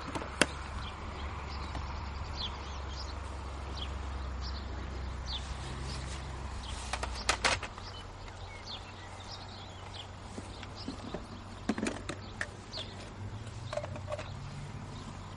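Scattered short bird chirps, with a few sharp clicks and knocks as a laptop and an aluminium case are set down on a stone wall and the laptop lid is opened. A low rumble underneath fades out about halfway through.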